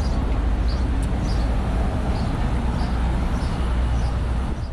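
Wind buffeting the microphone in a steady low rumble, with a small bird chirping over it, one short high note about every 0.7 seconds.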